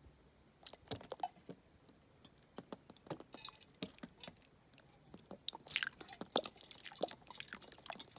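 Miniature 3D-printed flushing toilet: a few light clicks and taps of its flush mechanism, then about five and a half seconds in, water trickling and dripping through the little bowl. It is a poor flush, with string clogging the drain.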